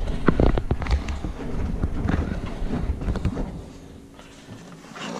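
Top-loading washing machine running, a low rumble with irregular knocks that ease off about three and a half seconds in.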